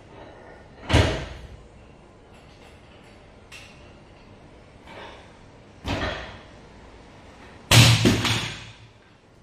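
Cast-iron adjustable dumbbell knocking and thudding heavily three times, the loudest near the end as it drops onto rubber gym flooring and bounces a few times. This is a drop-proof test of the dumbbell.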